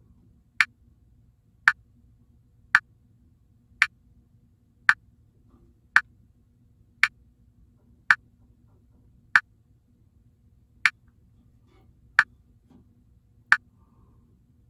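Metronome click track ticking about once a second, with no tuba playing. The clicks spread out in the second half as the tempo slows for a ritardando.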